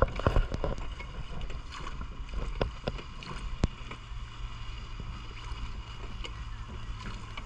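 River water rushing past a small drifting boat, with wind on the microphone and a few sharp knocks in the first few seconds.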